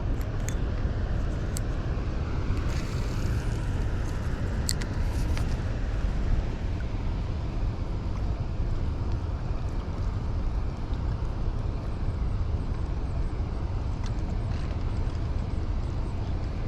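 Steady low rumble of wind buffeting the microphone outdoors, with a few sharp clicks in the first six seconds.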